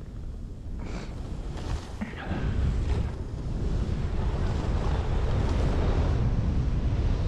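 Wind buffeting a helmet-mounted action-camera microphone while riding a snowboard downhill, with the board hissing over the snow. It gets louder from about two seconds in as speed picks up.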